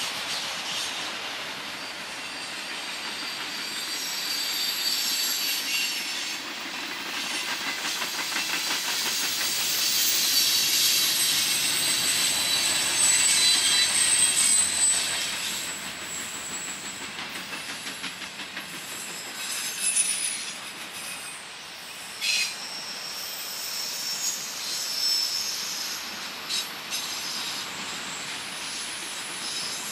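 Freight train cars rolling past with steel wheels squealing against the rails, loudest about halfway through. A few sharp clacks come over rail joints later on.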